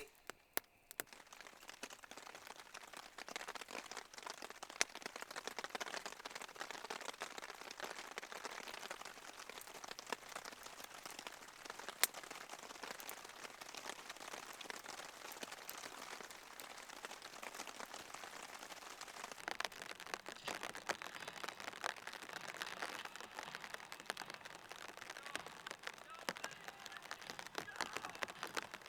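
Steady light rain pattering, many small drop ticks over a soft hiss.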